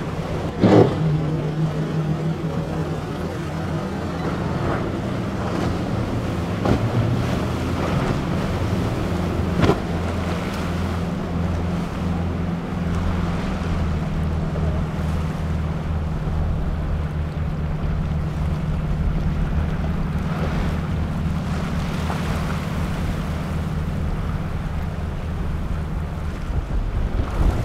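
Triple Suzuki 300 outboard engines on a 38-foot Midnight Thunder boat running with a steady low drone, over the rush of water off the hull and wind on the microphone. A couple of sharp thumps come in the first ten seconds, the loudest about a second in.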